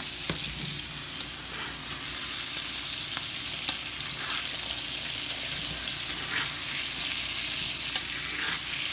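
Steaks sizzling steadily in a hot skillet of oil and butter, with scattered crackles and pops of spitting fat.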